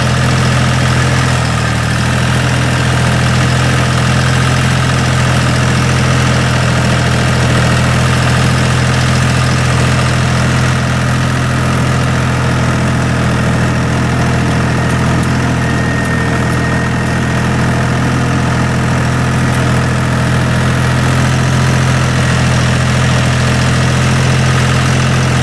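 Dongfeng 244 tractor's diesel engine running steadily while pulling a plough, heard from the driver's seat.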